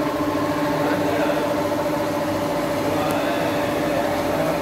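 A motor running with a steady hum.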